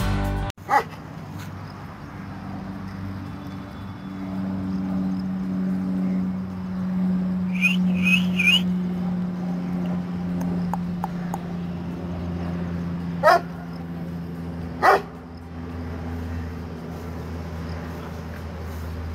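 Bully Kutta dog giving single deep barks, well spaced: one right at the start, then two about a second and a half apart two-thirds of the way in. A steady low hum runs underneath.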